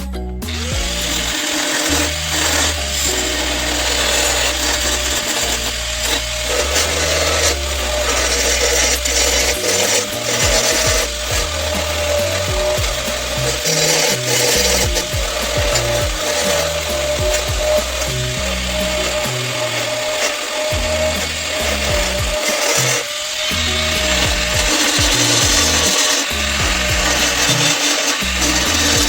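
Handheld power tool working sheet metal: a steady motor whine over a continuous rough rasping, with brief dips around 20 and 23 seconds in.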